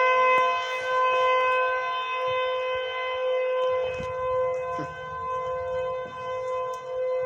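Outdoor tornado warning siren sounding a steady, unbroken tone.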